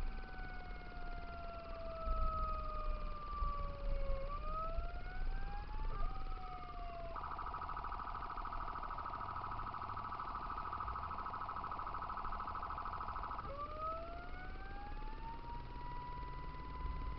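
Fire engine's electronic siren: a slow wail that falls and then rises, switching about seven seconds in to a rapid warbling yelp for some six seconds, then a rising wail that levels off near the end. A low road and engine rumble from the following car runs underneath.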